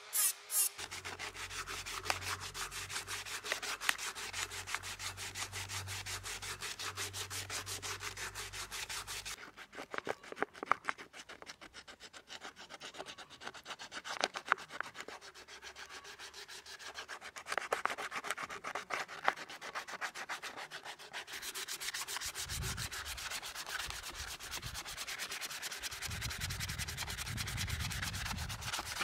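Sandpaper rubbed back and forth over a wooden knife handle in quick, rapid strokes. The strokes grow softer and sparser through the middle, then pick up again in the last third.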